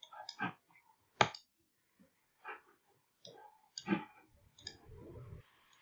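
Computer mouse clicks: several short, sharp clicks spaced irregularly over a few seconds, the loudest about a second in.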